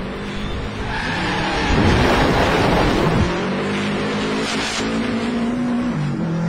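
Car engine running under load, heard from inside the cabin, its pitch dipping and then climbing again near the end. A louder rush of tyre and road noise swells about two seconds in and falls back after a second and a half.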